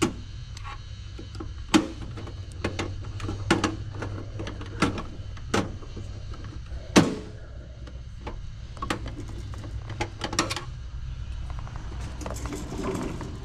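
Hand tools and metal parts clicking and knocking against a PTAC air conditioner unit as it is worked on: about fifteen irregular sharp knocks, the loudest about halfway through, with a quicker rattling near the end, over a steady low hum.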